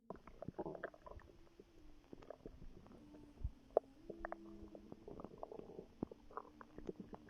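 A pregnant woman's stomach gurgling and rumbling in irregular wet gurgles and short pops. The sharpest pop comes a little before four seconds in.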